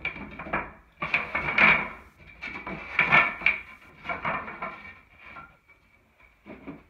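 Loose wooden bed slats clattering and knocking against each other and the bed rails as they are laid out and shifted by hand, in several bursts that grow fainter toward the end.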